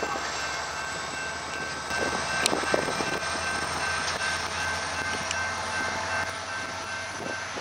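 Amtrak Auto Train rolling away along the tracks, a steady noisy rumble of wheels on rail with a couple of short clicks about two and a half seconds in.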